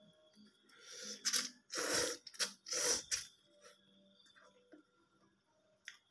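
A person slurping noodles off a fork: about four loud, noisy slurps in quick succession between about one and three seconds in, followed by quiet chewing.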